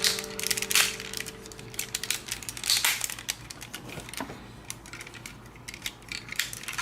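Hard plastic toy parts clicking, snapping and rattling in irregular bursts as a Tobot transforming toy robot is twisted and folded by hand.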